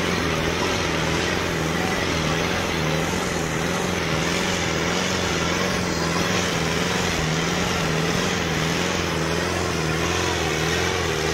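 Mahindra Arjun 605 DI tractor's four-cylinder diesel engine running hard under heavy load, dragging a disc harrow. Its pitch holds steady with a slight waver.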